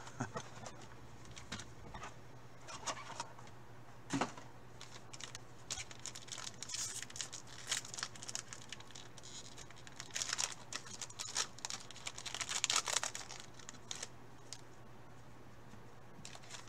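Clear plastic wrapper of a trading-card pack crinkling and tearing as it is opened by gloved hands, in scattered rustles and crackles that are busiest about ten to thirteen seconds in.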